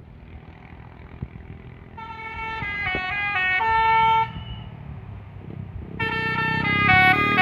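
A bus's Basuri telolet horn, a multi-note musical air horn, playing a short stepping tune twice: a phrase of about two seconds starting about two seconds in, and a second phrase starting about six seconds in and still going at the end.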